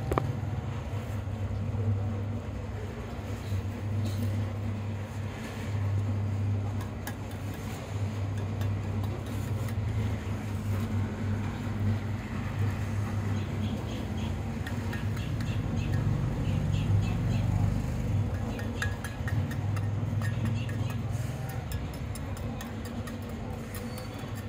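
A low motor rumble that swells and fades, with light repeated ticking and scraping through the middle stretch.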